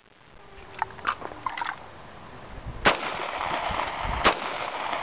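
Two 9mm gunshots from Fiocchi 147-grain jacketed hollow-point rounds, about three seconds in and again about a second and a half later. The first bursts a water-filled plastic soda bottle.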